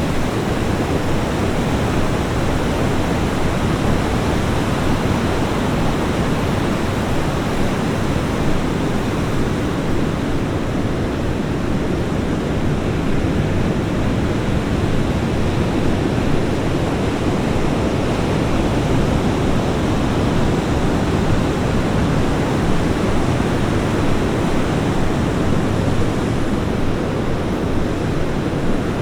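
Ocean surf breaking on a beach: a steady, continuous wash of waves with no distinct single breakers standing out.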